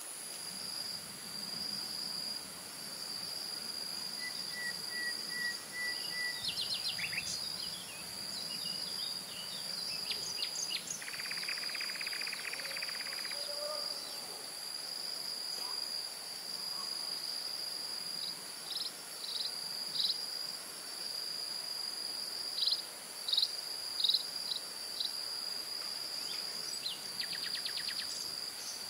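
A steady, high-pitched insect trill with brief breaks. Birds call now and then over it with short chirps, and one gives a rapid trill about eleven seconds in.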